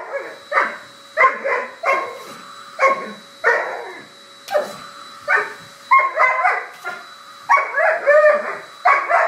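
Doberman barking repeatedly at a vacuum cleaner hose that she is lunging at and biting. The barks come in a steady series, about one a second at first, then in quicker, tighter runs from about six seconds in.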